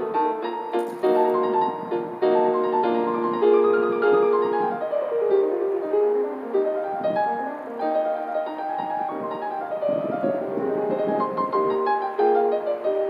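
Background piano music: a melody of piano notes over chords.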